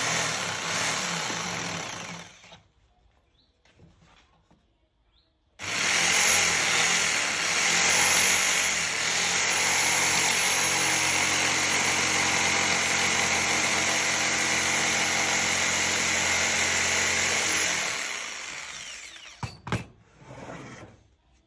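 Corded jigsaw cutting along a wooden plank. It runs for a couple of seconds and stops, then starts again about five seconds in and cuts steadily for about twelve seconds before winding down. A few sharp knocks follow near the end.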